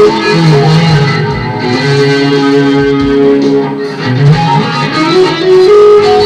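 Electric guitar played solo: a melodic line of held notes with a couple of sliding rises in pitch.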